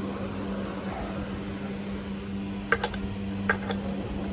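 Steady hum with four sharp metal clinks in the second half as metal tool adapters are handled.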